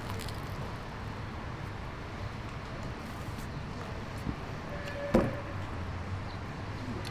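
Steady road traffic running past, with a single sharp knock about five seconds in.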